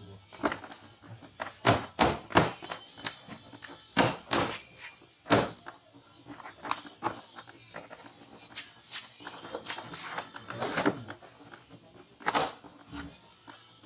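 Irregular sharp clicks and knocks of hand tools and metal and plastic scooter parts being handled during disassembly.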